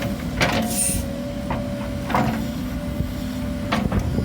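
Excavator engine running steadily with a steady higher tone over it, and several short knocks and scrapes as the bucket works the dirt.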